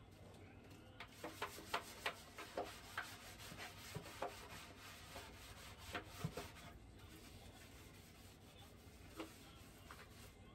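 Bare feet rubbing and scuffing on wet, soapy ceramic floor tiles: a quick string of short rubs in the first six seconds or so, then one more near the end.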